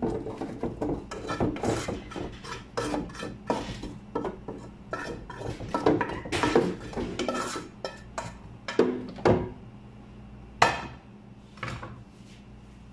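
Irregular clinks, knocks and scraping as blended mushroom sauce is tipped and scraped out of a blender jar, with two sharper knocks near the end as the jar is handled and set back on the blender base.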